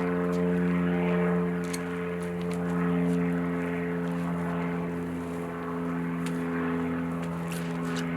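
A motor running steadily at one constant pitch, a droning hum with a few faint clicks over it.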